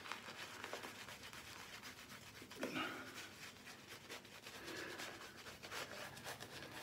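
A hand rubbing thick shaving-soap lather into a full beard: a faint, continuous crackle of many tiny clicks from the foam.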